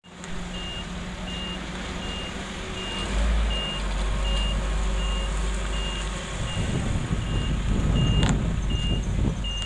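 A reversing alarm beeps steadily, a little more than once a second, over the low running of heavy diesel engines. In the second half a loaded sand dump truck's engine grows louder as it passes close, with a sharp knock about eight seconds in.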